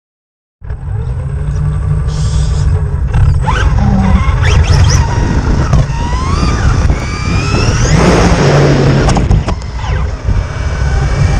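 Traxxas RC car's electric motor whining and rising in pitch again and again as it accelerates across pavement, over a low rumble of tyre and wind noise. A stretch of rougher, hissing noise comes about eight seconds in.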